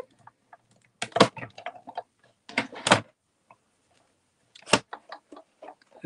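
Manual cut-and-emboss machine passing a stack of plastic cutting plates through its rollers: a few separate clunks and clatters as the plates come out the other side and are handled.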